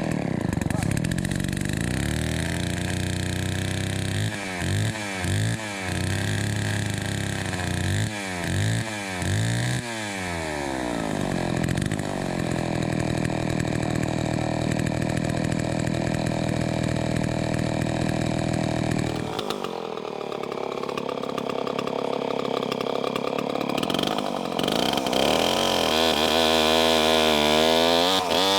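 Vintage Homelite C-91 chainsaw's 5.2 cubic inch two-stroke engine running, just started. Its speed dips and climbs back about half a dozen times early on as the throttle is worked, then it holds steady, and near the end the engine speed wavers up and down.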